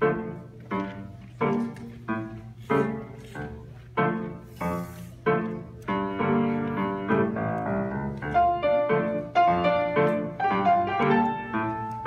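Grand piano being played: a run of separate struck chords, each ringing and fading, then from about six seconds in a faster, fuller passage with held notes.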